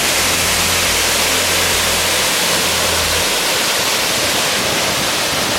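Waterfall about 100 feet tall pouring down: a loud, steady rushing hiss of falling water.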